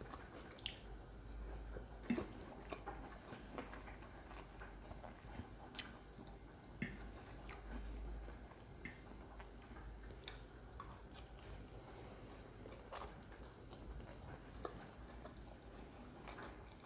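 Quiet chewing of a mouthful of spaghetti in cream sauce, with scattered small clicks and mouth smacks.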